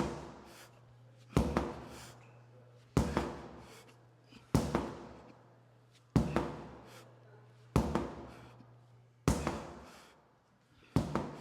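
Heavy sledgehammer blows landing at an even pace, about one every second and a half. Each is a sharp hit with a tail that fades over about a second.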